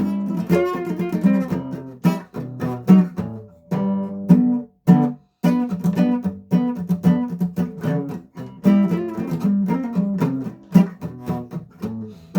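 Acoustic guitar strummed, chord after chord, with a couple of brief breaks near the middle.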